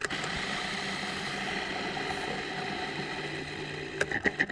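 Electric food processor motor switching on and running steadily, chopping mushrooms into a carrot and sunflower-seed veggie-burger mix; about four seconds in the sound turns uneven and choppy.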